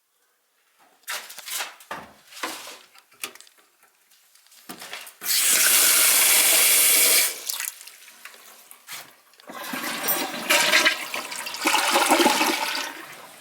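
A toilet flushing: a few light knocks, then a loud steady rush of water for about two seconds, and a longer gurgling rush as it drains and refills near the end.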